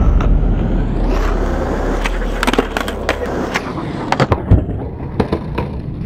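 Skateboard wheels rolling on asphalt, then the board clacking and clattering on the pavement in a run of sharp knocks as the rider bails. The loudest knock comes about four and a half seconds in.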